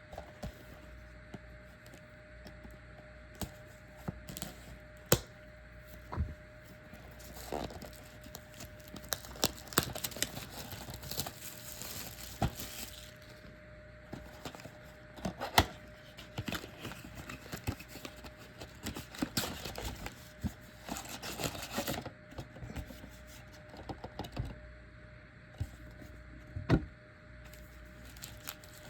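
A cardboard trading-card box and its plastic wrapping being ripped open and crinkled, with sharp taps and clicks as the card packs are handled. There are two longer stretches of ripping and crinkling, about ten seconds in and again about twenty seconds in.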